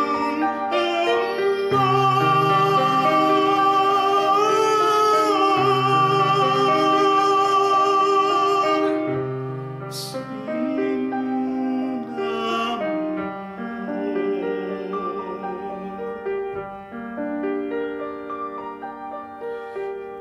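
A man singing in an operatic, classical style to grand piano accompaniment. He holds one long note that ends about nine seconds in, after which the piano plays on more softly with only brief sung phrases.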